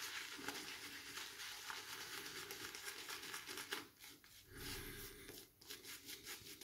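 Semogue 820 boar-bristle shaving brush working shaving-soap lather on the face: a faint, quick crackling scrub of bristles through the lather, pausing briefly about four seconds in.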